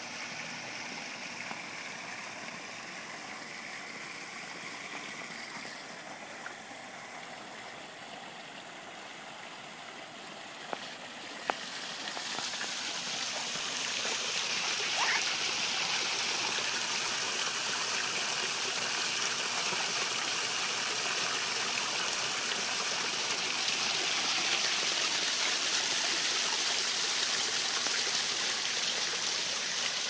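Small stone waterfall spilling into a koi pond: a steady splashing rush of falling water that grows louder and brighter about twelve seconds in. Two short clicks shortly before the rise.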